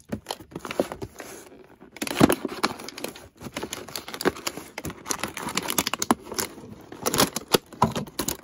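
A toy figure's cardboard box with a clear plastic window being handled and opened: irregular crinkling of the plastic, with taps and clicks and a sharper knock about two seconds in.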